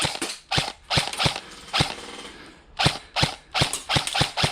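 Airsoft guns firing: sharp single shots at uneven spacing, quickening near the end into a rapid string of shots.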